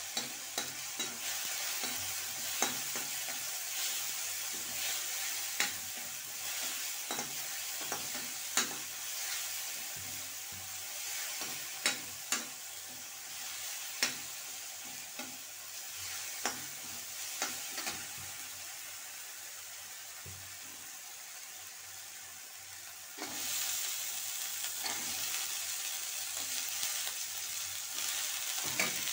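Masala sizzling in oil in a metal kadhai, with a metal spatula scraping and clicking against the pan as it is stirred. About three-quarters of the way through, the sizzle steps up louder as cauliflower florets go into the hot pan.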